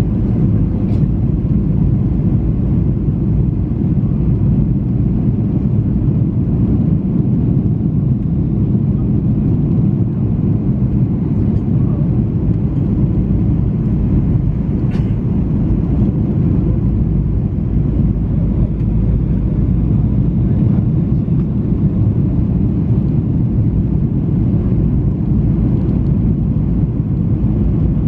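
Steady low rumble of jet engines and rushing airflow heard inside an airliner cabin, on the descent to landing with the flaps extended.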